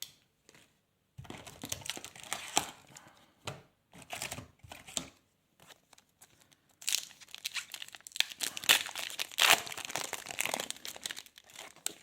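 A trading-card pack wrapper being torn open and crinkled, in two spells of crackling with a short lull between them; the second spell is louder.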